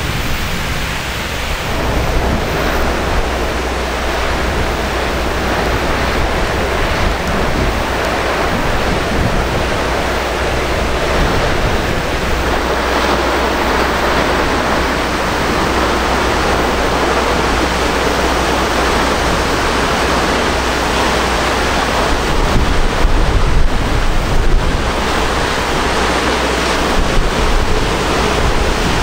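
Wind buffeting the microphone: a loud, steady rush with a fluctuating low rumble beneath it, and a few stronger gusts about two-thirds of the way through.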